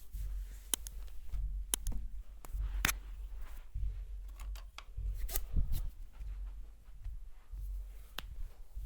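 Hands rubbing and working a head at close range, with a low rumble that comes and goes and scattered sharp clicks and slaps.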